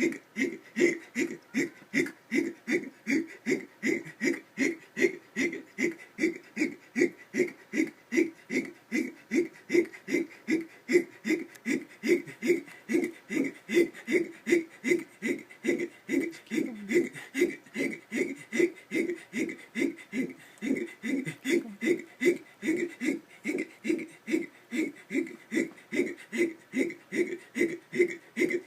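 A person's hiccups, short and rapid at about two a second in an unbroken, even rhythm: chronic hiccups that have gone on constantly for six months.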